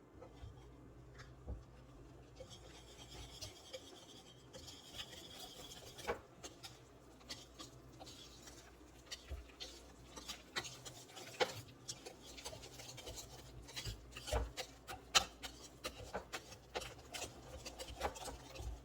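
Batter being stirred by hand in a mixing bowl: a utensil scraping and rubbing through the thick mix with irregular light knocks against the bowl.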